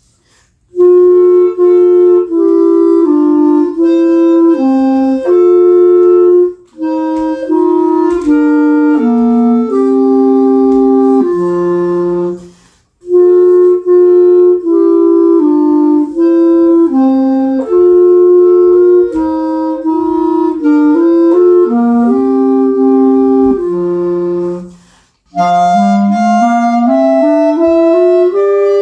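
Two clarinets playing a duet in phrases of held and moving notes, with brief breaks between phrases. Near the end the notes climb in a quick rising run.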